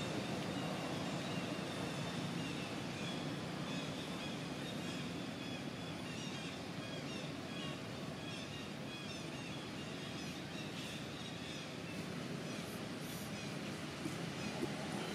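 Steady outdoor background noise with a low rumble, and small birds chirping over it in quick short notes through the middle of the stretch.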